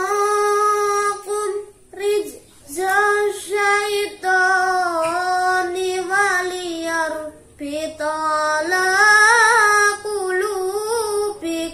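A boy's solo voice reciting the Quran in melodic tilawah style: long held notes with ornamented turns of pitch, in phrases broken by short breaths, climbing to its loudest passage near the end.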